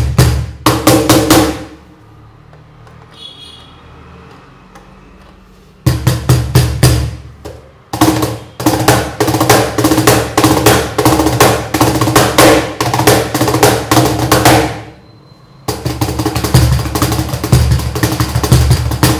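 Wooden cajon with built-in snare jingles, played with bare hands: a quick groove of deep bass strokes and sharp slaps. A short phrase opens, the playing stops for about four seconds, then runs on in longer passages with a brief break near the end.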